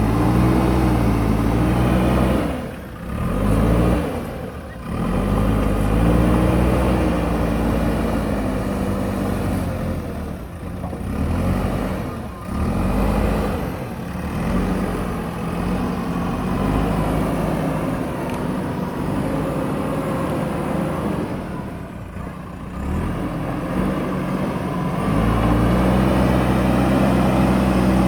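JCB backhoe loader's diesel engine running and revving up and down as it works, its pitch rising and falling and dropping away briefly a few times, then holding steady near the end.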